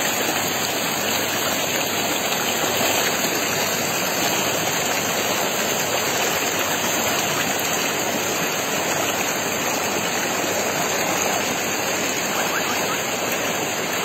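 River water rushing over rocks in shallow white-water rapids, a steady, unbroken rush.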